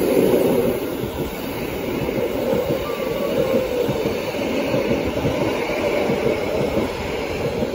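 Metre-gauge Rhaetian Railway Bernina line passenger carriages rolling past close by, their wheels giving a steady rumble and clatter on the rails.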